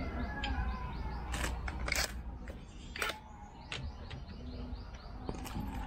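Sharp metallic clicks and clacks, about six spread over several seconds, as lug nuts are threaded onto a car's alloy wheel and a cordless impact wrench's socket is set onto them.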